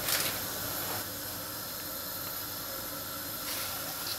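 A large pot of salted water boiling hard on a gas hob at full flame, a steady bubbling hiss. It has short louder rushes at the very start and again near the end, the later ones as an octopus is dipped into the boiling water.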